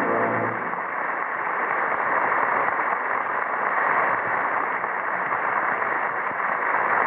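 Studio audience applauding steadily, rising just after a held brass music chord cuts off about half a second in.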